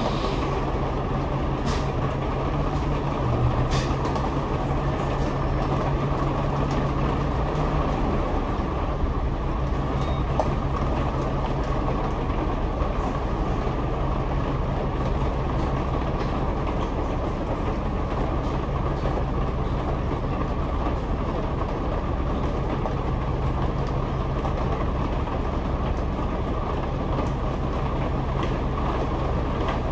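Double-decker bus's upper-deck cabin noise on the move: a steady engine hum under road rumble, with a few faint clicks and rattles.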